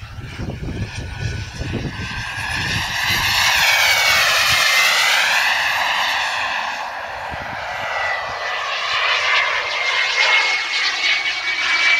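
Wren 54 gas turbine of a model jet in flight, whining and rushing past. The sound swells to a peak about four seconds in with a sweeping, phasing sound, eases, then grows louder again near the end as the jet comes round.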